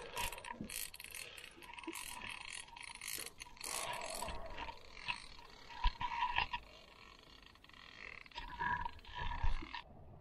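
Lake water splashing and crackling right at the microphone as a landing net is worked at the surface beside the boat. Just before the end the sound goes abruptly dull and muffled as the camera is pushed under water.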